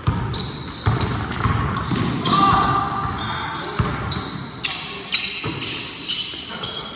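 Basketball bouncing on a gym floor in irregular thumps, with sneakers squeaking sharply and repeatedly on the court during play.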